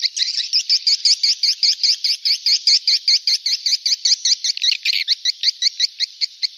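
Swiftlet call recording: a rapid, unbroken twittering of short high chirps, about eight a second, the kind of call track played in swiftlet houses to lure the birds in.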